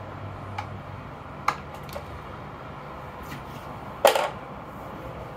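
The axle of a Boosted Rev's rear hub-motor wheel clicking and knocking against the swingarm dropouts as the wheel is wiggled out. There are a few light clicks, then a louder clunk about four seconds in.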